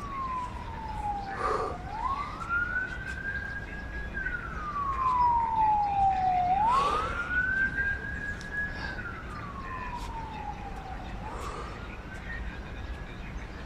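Emergency vehicle siren in a slow wail, rising quickly in pitch, holding high, then falling slowly, over and over about every five seconds.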